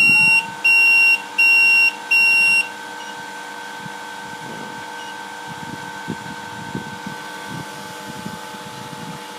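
BIRD 8888 rework station beeping four times in quick succession, each beep about half a second long. A steady whine comes up at the same moment and holds, with a few faint knocks underneath.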